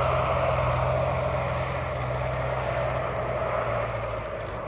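Turboprop engine of a Zlin Z-137T Agro Turbo agricultural biplane running at full take-off power, steady and gradually fading as the plane climbs away.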